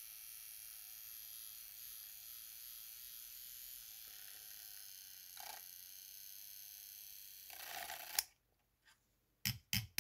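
Handheld milk frother whirring steadily as it whisks cream into coffee in a stainless-steel travel mug, switched off abruptly about eight seconds in. A few short knocks follow near the end.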